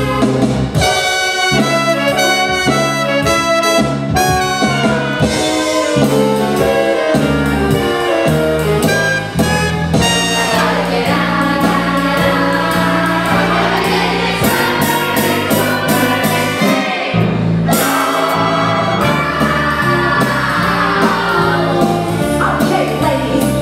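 Live theatre pit orchestra playing an up-tempo rhythm-and-blues number, led by a brass section over strings, keyboard and drum kit.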